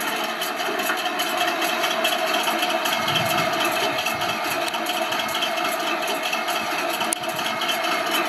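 Simulated tank engine idling, played by the Clark TK24S sound board through the small speaker of a Torro 1:16 RC Tiger I tank. It runs steadily, with a deeper rumble added from about three seconds in.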